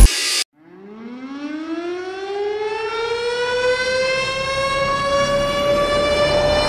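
A siren-like wail winds up: one long tone that rises slowly in pitch and levels off near the end. It follows a short burst of noise that cuts off abruptly and a moment of silence at the start.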